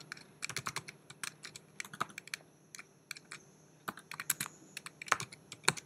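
Computer keyboard being typed on: short irregular runs of key clicks, with a brief lull about halfway through.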